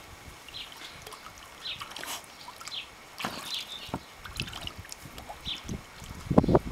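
Shallow water in an inflatable paddling pool sloshing and splashing as dogs wade through it, with louder splashing near the end. Birds chirp briefly now and then.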